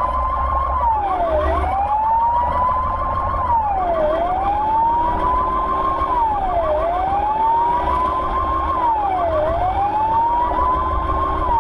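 Ambulance siren on the wail setting, heard from inside the vehicle: a tone that rises slowly and drops quickly, repeating about every two and a half seconds, over a second, much faster repeating tone. A steady engine and road rumble runs underneath.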